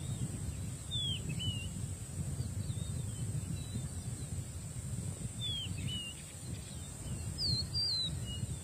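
A bird calling in short whistled chirps that sweep down and then up, two at a time about a second in and again around five and a half seconds, with a quicker cluster of three or four near the end, over steady low background noise.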